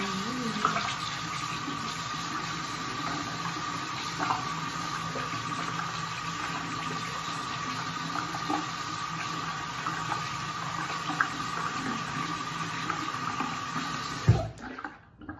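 Bathroom tap running into a sink while a mask-application brush is rinsed under it, with a steady whistle in the flow. The water is shut off abruptly with a knock near the end.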